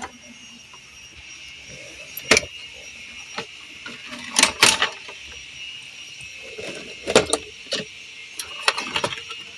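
Plastic dashboard trim panel of a Toyota Super Grandia being pried loose and unclipped by hand: about half a dozen scattered clicks and knocks, with a steady faint high-pitched hum underneath.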